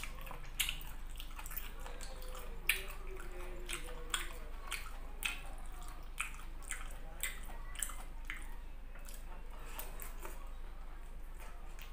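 Close-miked eating sounds: chewing squid and rice with wet mouth noises, irregular clicks and smacks coming every half second or so.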